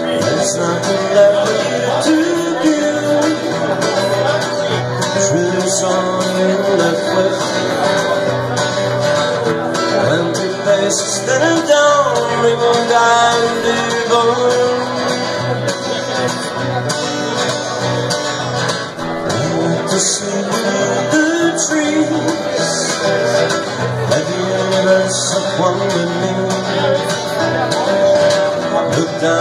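Two acoustic guitars playing together.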